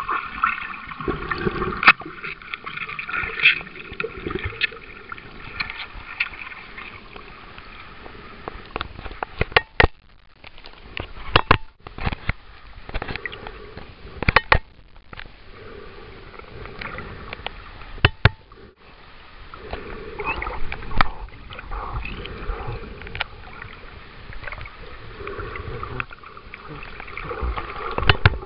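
Muffled underwater sound picked up by a submerged camera: water moving and sloshing around it, with sharp knocks and clicks at irregular intervals, thickest around ten to fifteen seconds in.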